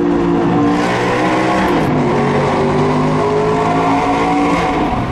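Audi R8's V8 with an Armytrix exhaust, accelerating hard, heard from inside the cabin in a tunnel. The engine pitch drops about two seconds in, as at a gearshift, then climbs again.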